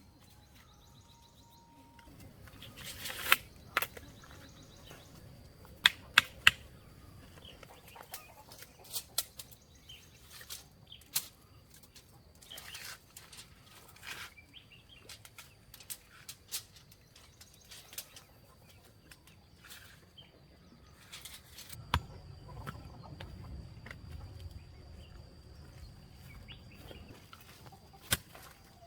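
Irregular sharp knocks and clicks, a few much louder than the rest, over a faint steady high-pitched tone.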